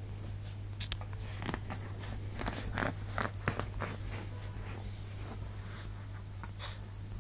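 A small dog scrambling and play-biting on a bed: quick scratchy rustles and scuffs of paws and body on the bedding, busiest a second or two in, over a steady low hum.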